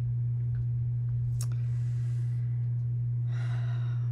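A steady low hum, with a single sharp click about a second and a half in and a short breathy sigh near the end.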